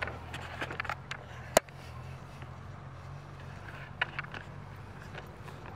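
Mitsubishi Lancer Evolution IV's turbocharged four-cylinder engine running steadily, heard from inside the cabin as a low hum. Light clicks and rattles sound over it, with one sharp click about a second and a half in.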